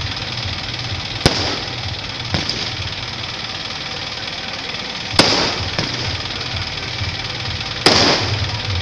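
Aerial firework shells bursting: three loud sharp bangs, each trailing off in a rolling echo, about a second in, around five seconds and near the end, with a couple of smaller pops between, over steady background noise.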